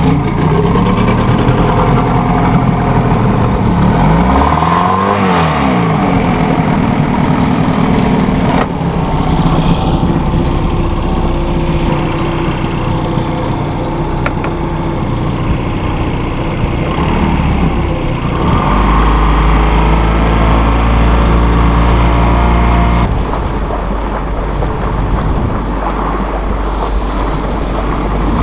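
Honda four-stroke outboard motor running, its pitch rising and falling as the throttle is worked about four to six seconds in, then running steadily. Its sound changes abruptly a few times.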